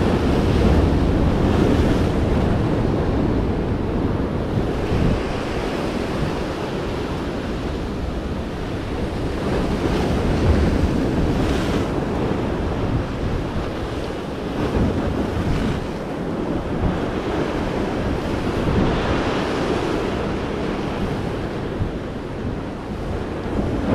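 Ocean surf breaking and washing over the jetty rocks close by, a steady rush that swells and eases, with wind buffeting the microphone.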